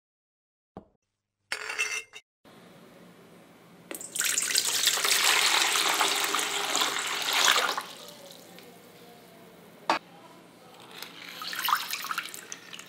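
Water poured into a metal bowl, a loud steady splashing pour for about four seconds, then a shorter, weaker trickle near the end. A brief clatter comes before the pour and a single click between the two pours.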